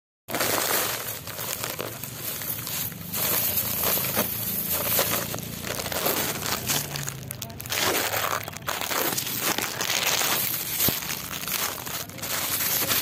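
Dry rice straw and stubble crinkling and crackling close to the microphone, with irregular sharp crackles throughout.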